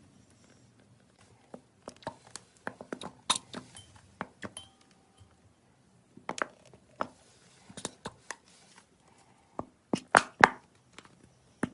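Slime being pressed and squeezed by hand, giving off irregular sharp clicks and pops in small clusters. The loudest pops come near the end.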